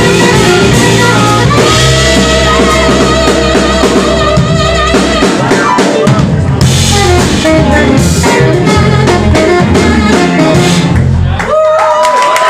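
Live band playing: drum kit, congas, bass and electric guitars, saxophone and keyboard, loud and dense. The song stops about eleven and a half seconds in, and whistling from the audience starts.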